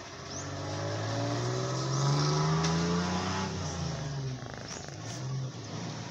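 A motor vehicle engine running and accelerating, its pitch rising and its level growing over the first three seconds before it eases off into a steady lower hum.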